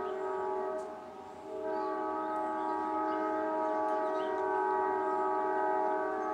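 Amtrak locomotive's multi-chime air horn sounding a chord of several notes at once: a blast that breaks off briefly about a second in, then one long held blast.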